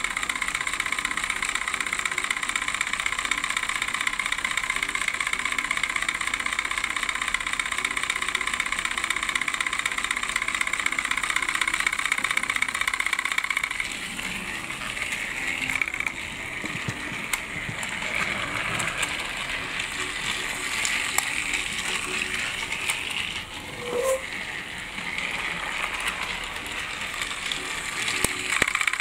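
Battery-powered Fisher-Price TrackMaster Hurricane toy engine running along plastic track, its small geared motor whirring steadily with a rattle of wheels on the track. The sound drops somewhat about halfway through and grows louder again near the end.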